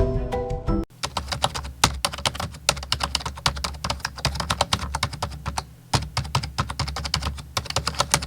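Fast typing on a computer keyboard: a quick, uneven run of key clicks, with a short pause about six seconds in.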